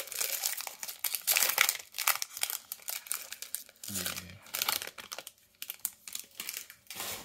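Foil wrapper of a Panini Contenders trading-card pack crinkling and tearing as it is pulled open by hand, in irregular sharp bursts that are loudest in the first two seconds.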